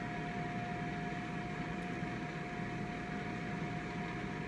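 Air fryer running: its fan gives a steady whir with a constant mid-pitched tone through it.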